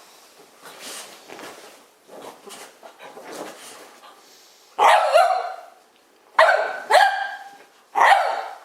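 Pet dog barking in play: four loud, sharp barks in the second half, after a few seconds of faint rustling.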